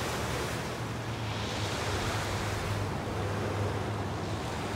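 Waves breaking and washing onto a stony gravel beach: a steady rushing of surf that swells about a second or two in.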